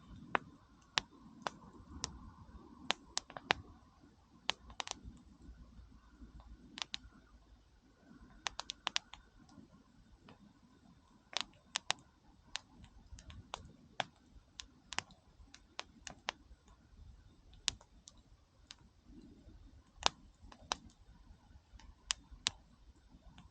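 Wood campfire crackling: irregular sharp pops and snaps, some in quick clusters, over a faint low rumble.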